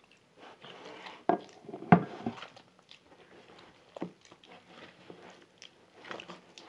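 A bare hand squeezing and slapping wet puff puff batter in a plastic bowl: soft irregular squelches and scuffs, with sharper slaps or knocks about one, two and four seconds in.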